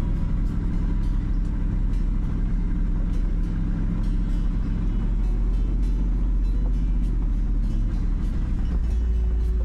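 Toyota Land Cruiser 79 series engine running steadily in first gear, holding the heavy vehicle back on a very steep dirt descent, with background music over it.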